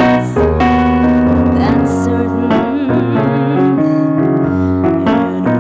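Electric piano on a stage keyboard playing sustained chords as song accompaniment.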